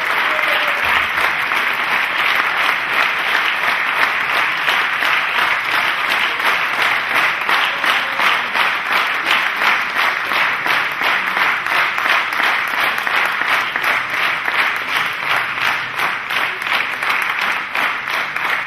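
Concert hall audience applauding. Through most of it the clapping falls into a steady, even beat.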